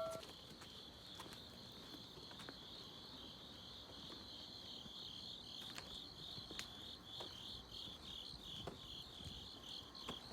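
Crickets chirping at night in a fast, steady, high-pitched pulsing trill, faint throughout.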